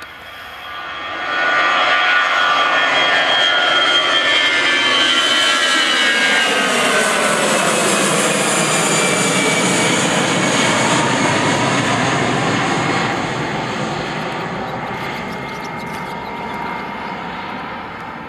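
Airbus A320's twin turbofan engines at takeoff thrust as the airliner climbs out overhead. The noise swells sharply about a second and a half in, its whining tones fall in pitch as the jet passes, and it fades slowly over the last few seconds.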